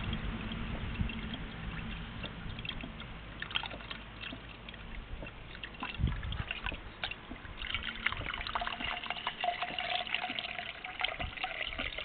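A thin stream of pumped water running from a garden hose, trickling and splashing into a bucket of water. From about eight seconds in it falls into a stainless steel jug instead and sounds brighter.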